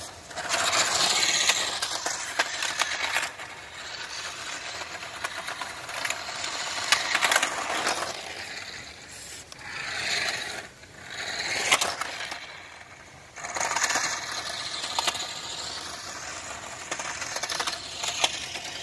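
Toy-grade BMW RC car with an added sprint motor driving in several short surges over gritty tarmac. The electric motor whines and the tyres scrape and crunch over loose grit, with scattered small clicks and rattles.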